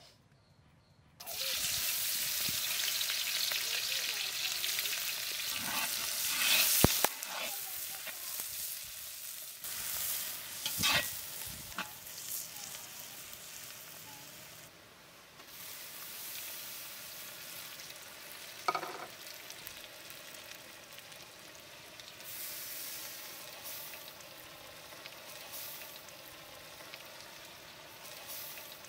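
Sliced onions dropped into hot oil in a large metal karahi, bursting into a loud sizzle about a second in. The frying hiss then slowly fades as the onions cook, broken by the knocks and scrapes of a metal spatula stirring them against the pan.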